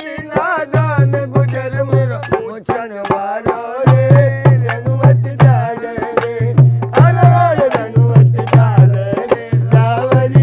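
Indian folk music: a hand drum keeps a quick, even beat under a bending melody line and a steady drone. The drum drops out twice for a moment in the first few seconds.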